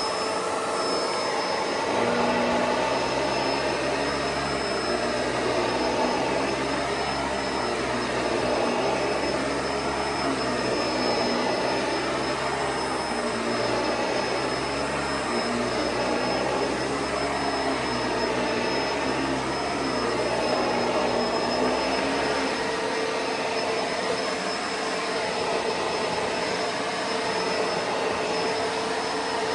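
Bissell SurfaceSense Pet upright vacuum cleaner running, its motor giving a steady high whine. About 22 seconds in, the low rumble drops away as the brush roll slows, the SurfaceSense feature reacting to a hard floor.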